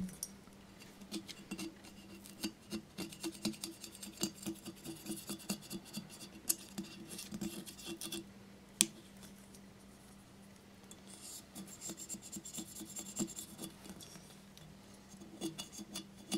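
Small flexible razor scraper scraping half-cured clear epoxy residue off the glazed surface of a porcelain vase in quick, short strokes, with a pause of about two seconds just past the middle and one sharp tick near the middle. A low steady hum sits underneath.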